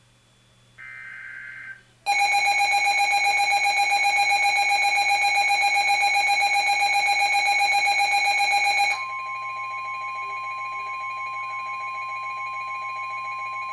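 Weather radio emergency alert: a short warbling SAME digital header burst, then a loud, buzzy alarm tone from about two seconds in. At about nine seconds the alarm drops to a quieter steady tone near 1 kHz, the NOAA Weather Radio warning alarm tone, which signals that a warning is being issued.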